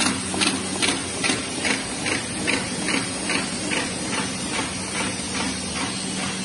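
MSseries12 envelope inserting machine with feeder-folder running: its mechanism clacks in an even rhythm, a little over two strokes a second, over a steady motor hum and hiss. The clacks grow fainter in the later part.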